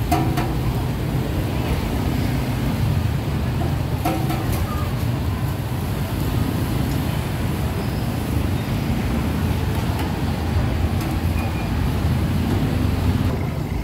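Steady low rumble of street traffic with faint background voices, and a few light clicks.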